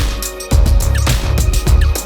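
Background music with a heavy bass beat and drum hits.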